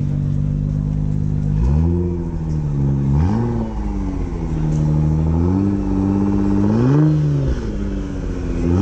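Nissan GT-R50 by Italdesign's twin-turbo V6 idling, then blipped repeatedly. The engine note rises and falls in pitch about four times.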